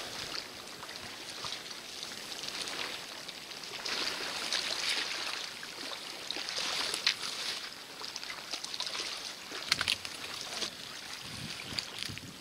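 Lake water lapping at the shore, a hiss that swells and eases in waves, with a few light clicks and knocks near the end.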